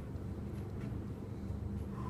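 A steady low mechanical hum, like an engine running nearby, with a few faint light clicks.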